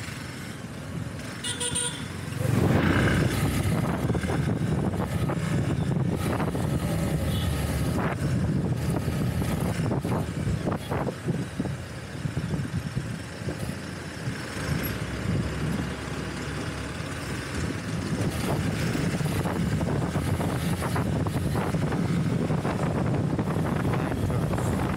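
Motorcycle engine running under way with wind noise on the microphone, the whole getting louder about two and a half seconds in. A vehicle horn gives a short toot about a second and a half in.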